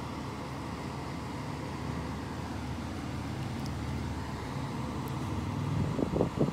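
Steady low background hum, with short louder bursts coming in near the end.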